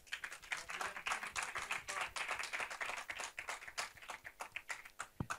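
Audience applauding, the claps thinning out near the end.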